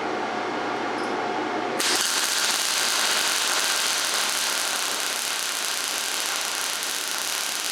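MIG welding arc crackling steadily while a bead is run; about two seconds in the crackle turns harsher and a little louder.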